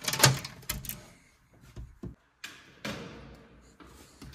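A door being opened: a few sharp clicks and knocks, loudest just after the start, then quieter handling sounds.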